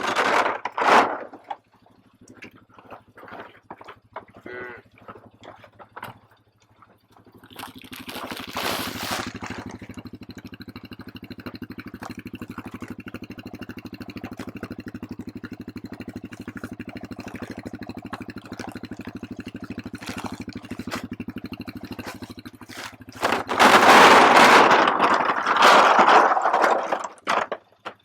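An engine starts running about seven seconds in and holds a steady, even pulse for roughly fifteen seconds. A few loose clicks and knocks come before it. A loud rushing noise takes over near the end.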